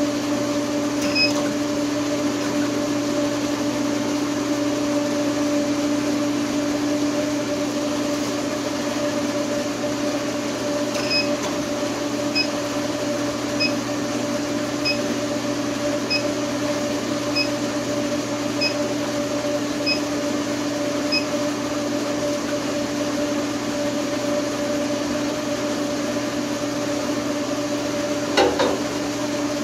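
Steady hum of an induction heater's TIG water-cooler pump and cooling fan. Short electronic beeps come from the unit's controls: one about a second in, another around eleven seconds, then eight evenly spaced beeps about a second and a quarter apart. A single metallic clank sounds near the end.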